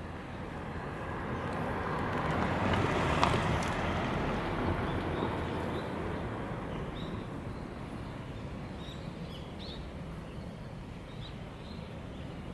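A vehicle passing by: a rushing sound that builds to a peak about three seconds in and slowly fades away, with faint bird chirps.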